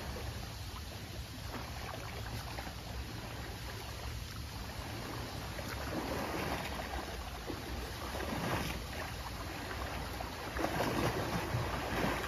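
Mother and calf Asian elephants splashing and wading through a muddy pond, the water sloshing and churning around them. Louder splashing comes about six and eight seconds in, and again from near the end as they wade toward the bank.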